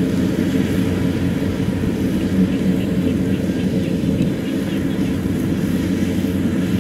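Kubota DC70 combine harvester running steadily under load as it cuts lodged, storm-flattened rice, its diesel engine giving a continuous drone.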